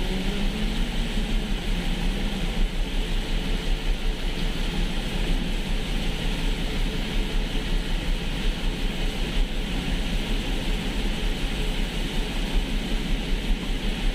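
Steady road noise of a moving vehicle on a rain-soaked expressway: tyres hissing on the wet pavement over a low engine and road rumble.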